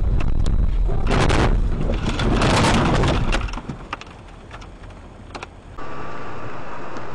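A car leaving a snowy road and ploughing through snow and roadside trees: a loud rush of noise with sharp cracks, as snow and branches strike the body and windscreen, lasting about two and a half seconds before it goes much quieter. Near the end, steady engine and road noise inside a car, with a faint steady tone.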